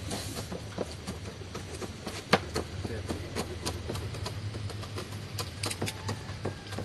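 Kitchen knife slicing thinly on a cutting board: irregular taps, about two or three a second, with one sharper knock a little over two seconds in.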